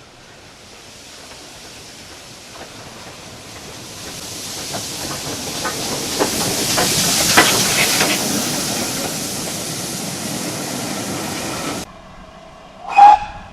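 A train passing close by: hiss and wheel clicks build to a peak about seven seconds in, ease off, then cut off suddenly. About a second later comes a brief, very loud pitched note.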